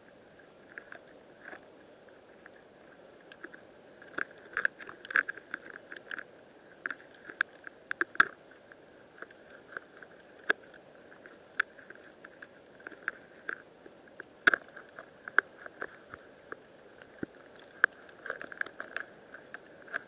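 Shallow seawater recorded underwater through a camera's waterproof housing: a faint steady hiss with irregular sharp clicks and crackles, busier in stretches, a few standing out louder.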